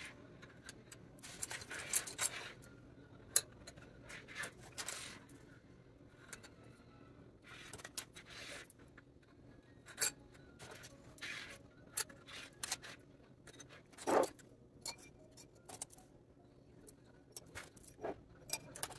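Scattered light clicks, taps and short scrapes of wooden wick-centering sticks and metal candle tins being handled and set down on a countertop, with a sharper click about three seconds in.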